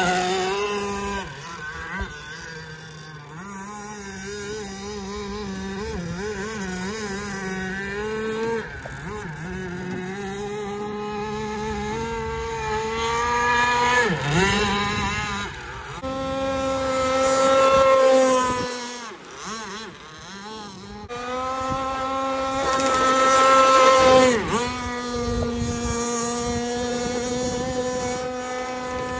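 Gasoline RC speedboat's two-stroke engine running at high revs, a buzzing whine whose pitch rises and falls with the throttle. About halfway and again near the end, the pitch sweeps down sharply as the boat passes close by, and it drops away briefly in between.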